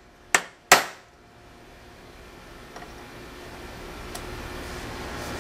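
A mallet strikes a steel T-handle reamer twice, less than half a second apart, in sharp metal-ringing blows. The reamer is being driven into the centre of a broken bolt to dent it as a starting point for drilling. After that, a steady hiss slowly grows louder.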